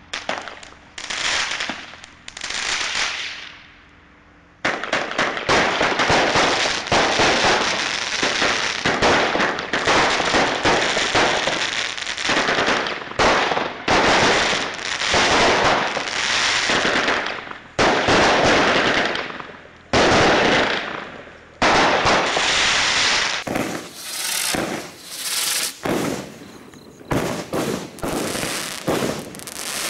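Consumer firework cakes (The Intimidator, then Party in a Box) firing in rapid volleys of shots and crackling bursts. The volleys come in dense runs with brief gaps, with a lull about four seconds in. About three-quarters of the way through the sound changes abruptly as the next cake takes over.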